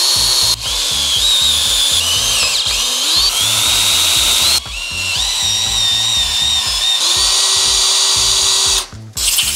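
Power drill running under load, drilling holes for an engine mount. Its high motor whine wavers in pitch as it bites, stops briefly about halfway, then runs again until near the end.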